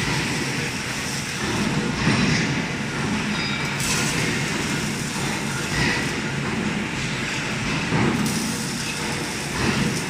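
Automatic cable tray loading, clamping and welding machine running: steady industrial machine noise, with brief louder swells about every two seconds.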